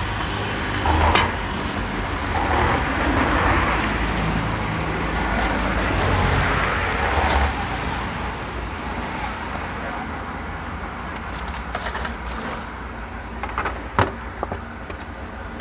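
Road traffic passing a roadside stall: a vehicle's low engine rumble and road noise that ease off after about eight seconds. A few sharp clicks stand out, the loudest about fourteen seconds in.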